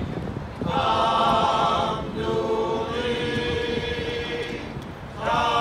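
Men's chorus singing in harmony, holding long chords phrase by phrase, with brief breaks between phrases.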